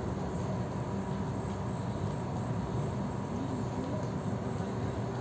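Steady low rumble of background noise, even and unbroken, with a faint steady hum above it.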